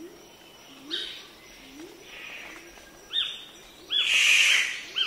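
Birds calling: a low, short, rising call repeats about every half-second, joined by short higher chirps in the last two seconds. A loud rushing burst comes about four seconds in.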